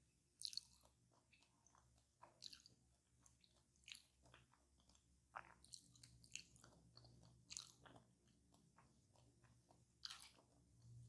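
Close-up chewing of a crisp fried pie, with sharp crackly crunches every second or two.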